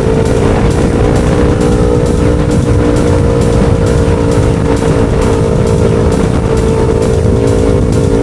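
2017 Yamaha R3's parallel-twin engine running at a steady cruising speed, its pitch rising slightly at first and then holding, with wind rushing over the microphone.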